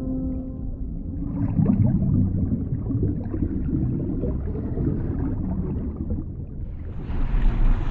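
Muffled, rumbling water noise of the kind a camera picks up underwater. A ringing tone dies away in the first second, and about seven seconds in a brighter rushing noise comes in.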